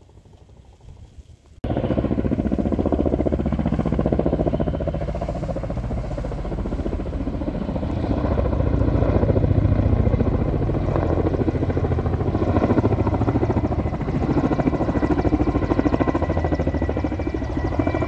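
Firefighting helicopter flying overhead with a water bucket slung beneath it: a steady, loud rotor chop and engine noise that cuts in suddenly about a second and a half in.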